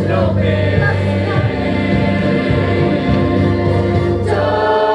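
Music with a choir singing held chords, shifting to a new chord near the end.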